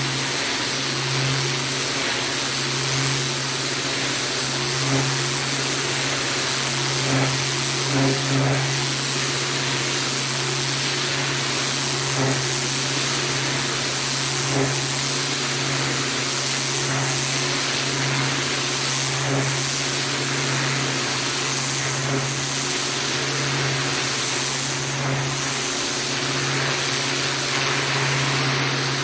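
Pressure washer running: its engine hums steadily while the high-pressure water spray hisses, with a few small knocks here and there.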